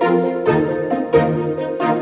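Background music: an instrumental track with a steady pulse of notes struck about twice a second.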